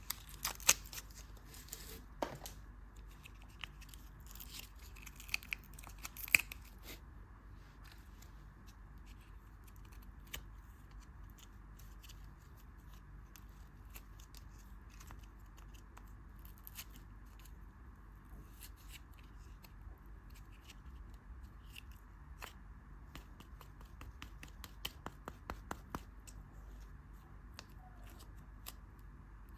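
Candy packaging being handled and opened close to the microphone: a run of sharp crinkles and snips for the first several seconds, then only scattered faint clicks, with a brief flurry of them a little over two-thirds of the way through.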